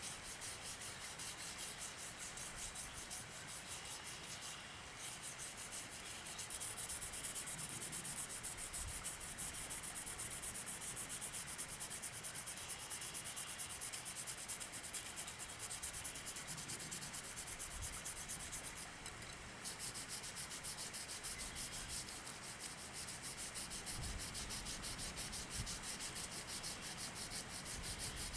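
Used sandpaper rubbed in quick back-and-forth strokes along the rusty metal frame of a Great Neck No. 9 coping saw, scrubbing off the rust. The strokes stop briefly twice.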